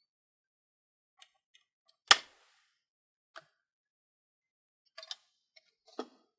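Metal parts of a disassembled Sony DSC-HX20V camera clicking as its internal metal plate is worked loose: a few faint ticks, one sharp loud snap about two seconds in, then scattered lighter clicks.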